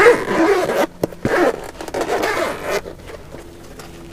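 Zipper of a black hard-shell camera accessory case being pulled open around the case in about three rasping pulls, with quieter handling of the case after that.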